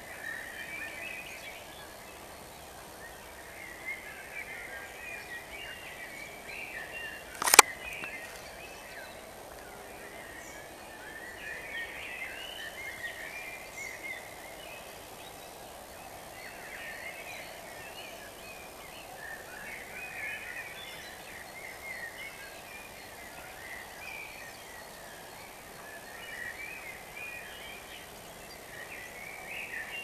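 Dawn chorus of songbirds: several birds singing short, warbling, chirpy phrases one after another over a faint steady background hum. A single sharp click cuts through about a third of the way in.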